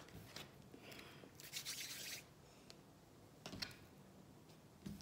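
Faint rustling of things handled on a tabletop, with a short click about three and a half seconds in and another near the end.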